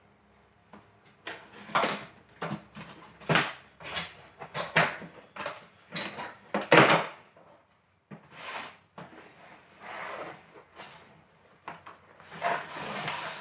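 Large cardboard box being opened by hand: a run of irregular cardboard scrapes, rubs and knocks as the lid is lifted and the flaps are pulled back.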